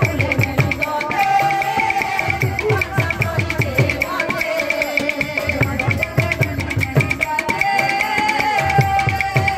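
Kirtan music: barrel drums struck by hand in a fast, driving rhythm under a steady, rapid metallic jingle, with a held sung line through a microphone and loudspeaker, plainest near the end.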